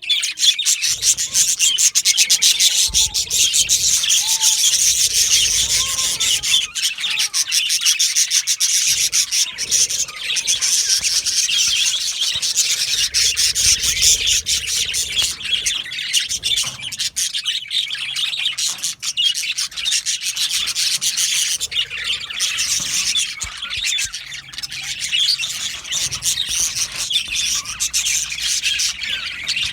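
A flock of male budgerigars chattering and chirping without pause, many birds calling at once.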